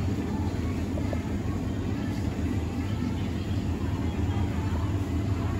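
Steady low hum and rumble of supermarket ambience beside a refrigerated display case.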